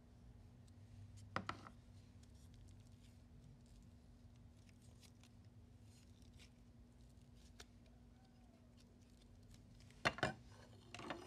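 Plastic spoon scraping and clicking against a small plastic tub while scooping stiff, clay-like slime: faint scratching throughout, with sharper knocks about a second and a half in and a few more near the end. A faint steady hum sits underneath.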